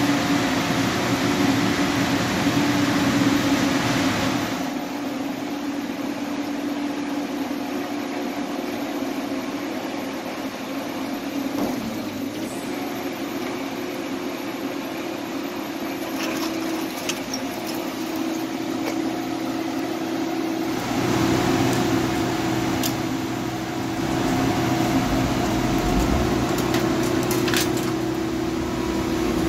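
Heavy scrap-handling machinery running: a steady diesel engine hum, louder and rougher for the first few seconds and again from about twenty seconds on, with a few faint metallic knocks.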